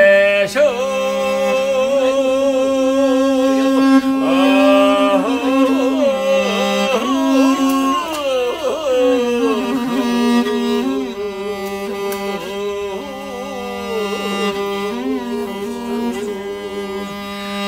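Mongolian long song (urtyn duu): a man sings long, held, ornamented notes over a morin khuur (horsehead fiddle) that sustains lower notes beneath the voice. About halfway through the melody slides down to a lower held pitch.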